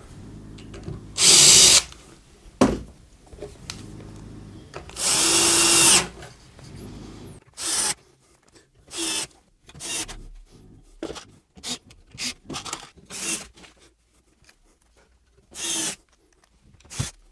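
Cordless drill-driver running in two short spells, driving small screws through plastic adjustable cabinet feet into an MDF base. After that comes a string of short knocks and clatters of parts being handled.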